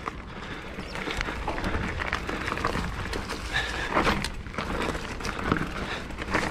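Mountain bike being ridden over rough, rocky trail: tyres rolling over rock and dirt with a steady low rumble and many irregular knocks and rattles from the bike.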